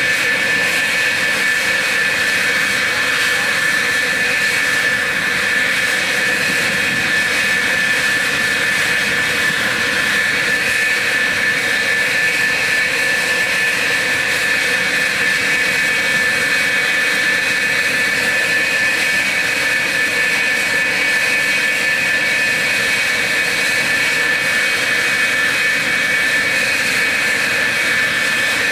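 F-4F Phantom's twin J79 turbojets idling on the ground after a cartridge start: a steady, unchanging rush with a shrill high whine on top.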